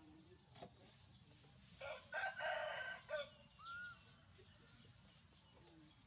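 A rooster crowing once, a drawn-out call of several linked parts lasting about a second and a half, starting about two seconds in. A short chirp follows just after it.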